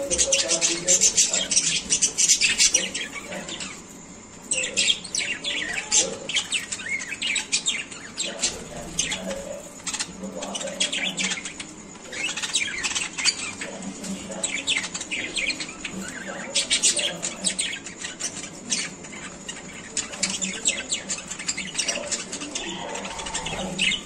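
Budgerigars chattering and warbling: a rapid, continuous stream of short high chirps and squawks, with a brief lull about four seconds in.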